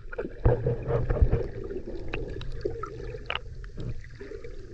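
Muffled underwater water sound heard with the camera submerged: water moving and gurgling, with scattered clicks and a couple of low thumps in the first second or so.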